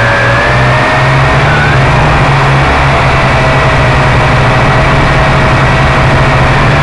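Quadcopter drone's electric motors and propellers whining steadily in flight, the pitch drifting gently up and down as it manoeuvres, over a dense hiss and a low hum.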